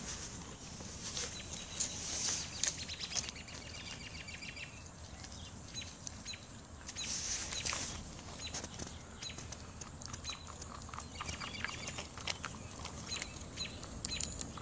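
Small birds chirping and trilling in the background, with many short clicks and crackles from a chipmunk handling and biting peanut shells.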